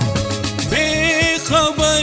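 Music soundtrack: a melody over a bass line, with a wavering high melody line coming in a little under a second in.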